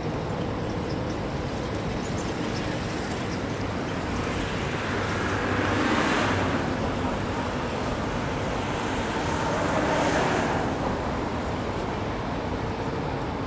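Steady city road-traffic noise, with two vehicles passing that swell louder and fade, about six and ten seconds in.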